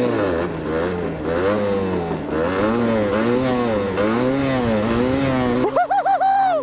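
Yamaha DT125's two-stroke single-cylinder engine revving up and down over and over, about once every two-thirds of a second, as the throttle is worked to hold the bike up on its back wheel. Near the end it revs higher and louder, with a wavering pitch.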